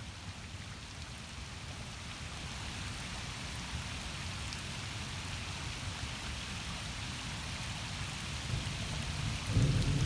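Steady rain pattering on a water surface, a soft even hiss that slowly builds. Near the end a louder low rumble of thunder comes in.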